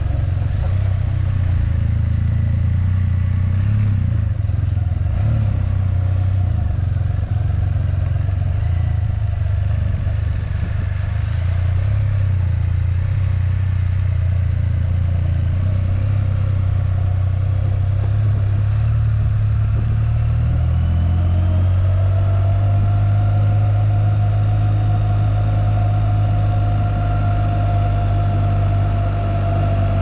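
Can-Am Spyder three-wheeled motorcycle engine running at low speed, a steady low hum that steps up a little in pitch about two-thirds of the way through as it pulls away, with a steady higher whine joining it from then on.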